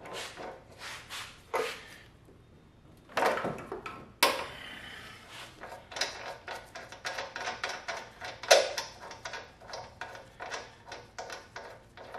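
Ratchet wrench clicking in short runs as the front axle bolt is worked loose, with two louder metal knocks about three and four seconds in, then a long run of quick clicks.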